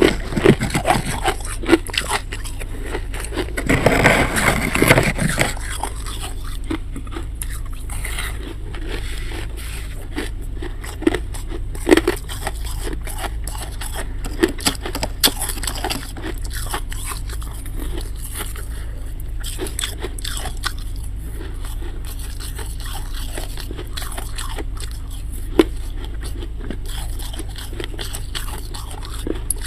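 Crunchy freezer frost and ice being scraped and bitten: a dense burst of scraping and crunching about four seconds in, then scattered sharp crunches over a steady low hum.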